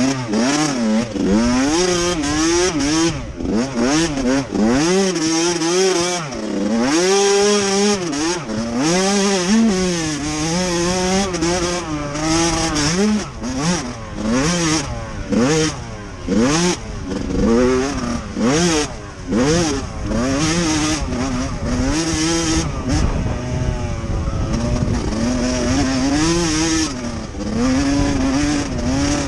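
Dirt bike engine revving up and down over and over as the rider accelerates, shifts and backs off around the track, heard close up on board.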